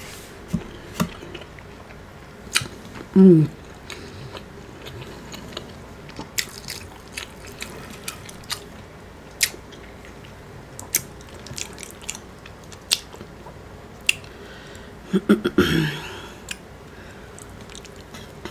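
Close-up eating sounds: chewing and biting with scattered wet mouth clicks, a short falling vocal sound about three seconds in, and a louder cluster of mouth sounds near the end.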